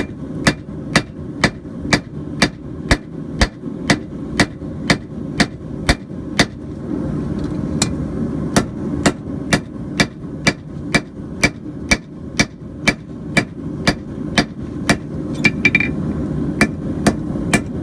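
Hand hammer striking coil-spring steel on an anvil, about two blows a second, each with a short metallic ring, with a brief pause about halfway through; the stock is being flattened into a blade shape. A steady low rumble runs underneath.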